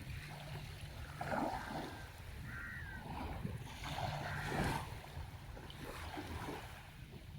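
Sea waves breaking and washing ashore, with two louder surges, one a little over a second in and one about four and a half seconds in. Underneath runs a steady low rumble of wind on the microphone.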